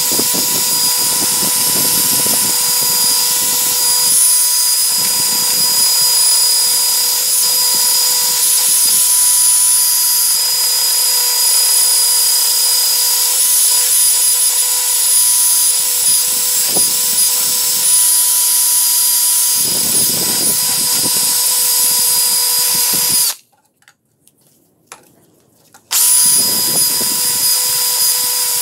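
Cordless drill running steadily, spinning a small wire wheel brush that scrubs rust off an old steel vernier caliper: a steady motor whine over a loud hiss of bristles on metal. About three quarters of the way through the drill stops for two to three seconds, then starts again.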